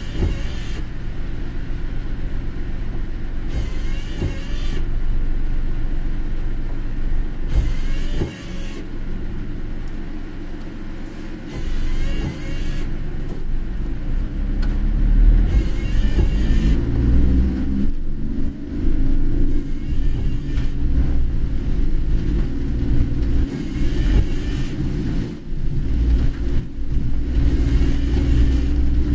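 Car driving on a wet road, heard from inside the cabin: a steady low engine and tyre rumble, with a hiss that comes and goes about every four seconds.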